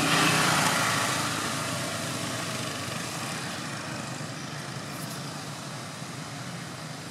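A motor vehicle's engine passing, loud at first and fading away over the first few seconds into a steady lower background hum.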